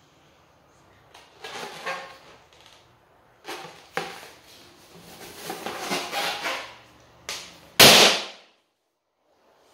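Inflated black latex balloon handled and shifted about with rubbing and rustling noises, then bursting with one loud pop near the end as a person sits on it.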